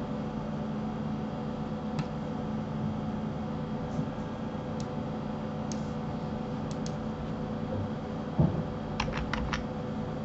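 Scattered computer keyboard clicks over a steady low hum, with a dull thump a little before the end followed by a quick run of four key clicks.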